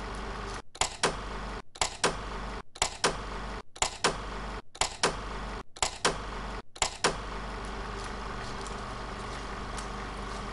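Pairs of sharp mechanical clacks about once a second over a steady hum, each pair coming just after a very short dropout. The clacks stop about seven seconds in and the hum carries on alone.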